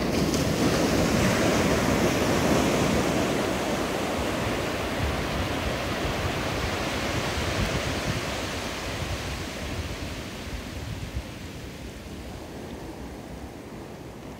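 Small ocean waves breaking and surf washing up the beach, loudest in the first few seconds and slowly fading.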